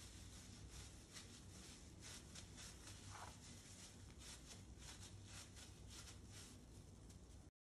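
Faint crinkling of a plastic disposable glove and soft squishing as a hand presses and flattens raw minced-chicken nugget mixture on a plastic cutting board, a run of irregular small crackles with a brief squeak about three seconds in.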